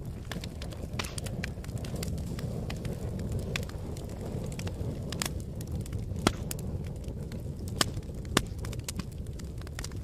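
Wood fire crackling: a steady low rumble of burning logs with frequent sharp snaps and pops, three louder pops in the second half.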